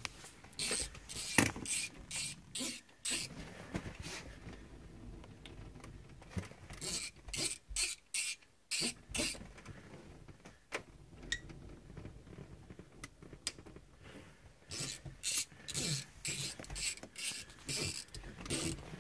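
Braided 50-pound fishing line sawed back and forth through windshield urethane adhesive, making short rasping strokes about three a second. The strokes come in three runs separated by pauses.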